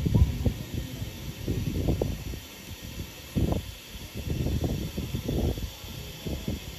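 Irregular low rustling and soft bumps, loudest about two and three and a half seconds in, over a faint steady hiss.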